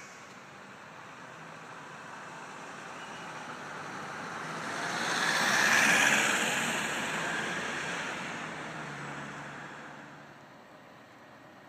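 A road vehicle passing by: its noise swells to a peak about six seconds in, then fades away.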